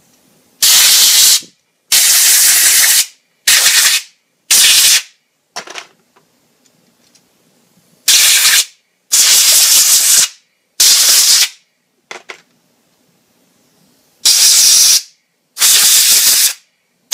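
Compressed air from a compressor-fed blow gun, fired in about nine short, abrupt hisses of half a second to a second each with brief gaps, blasting rinse water off small plastic action-figure parts to dry them.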